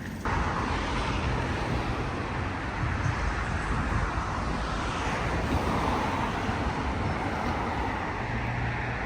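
Steady road traffic noise: a continuous rush of passing vehicles with a low engine hum underneath.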